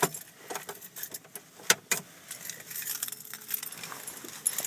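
A key ring jangling in light, irregular metallic jingles and clicks, with a few sharper clicks at the start and about two seconds in.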